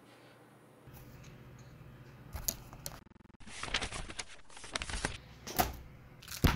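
Paper pages of a spiral notebook rustling as they are flipped, with a few sharp clicks and knocks as the notebook is handled and shut; the loudest knock comes near the end.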